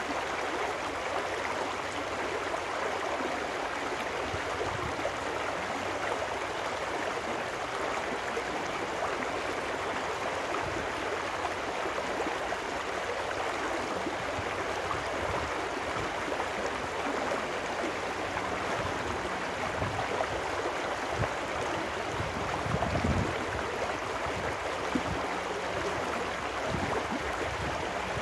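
Shallow trout stream rushing and splashing steadily over rocks in a riffle, with a few brief low bumps about three-quarters of the way through.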